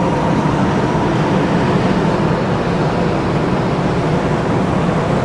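Kintetsu "Raku" electric train running, a steady, dense rumble and hiss of the moving train.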